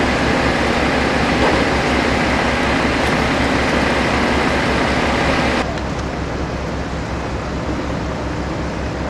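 Heavy engine running steadily, a loud low rumble with a constant hiss over it. A little over halfway through, the sound suddenly drops in level and turns duller.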